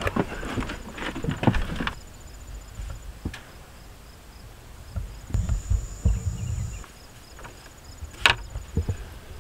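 Clicks and rustles of hands working a utility vehicle's cab door handle and the paper tag on the ignition key, with a sharp click near the end. Insects chirp faintly and steadily in the background.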